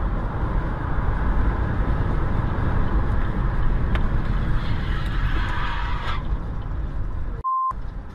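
Steady road and engine noise of a car travelling at highway speed, heard from inside the cabin through a dash cam. Near the end the sound drops out briefly to a short single-pitched beep.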